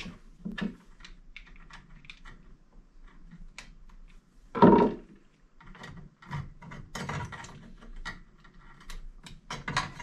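Small scattered clicks and rustling of wires as push-on spade terminals are fitted onto the lugs of a replacement power switch, with one louder knock about halfway through.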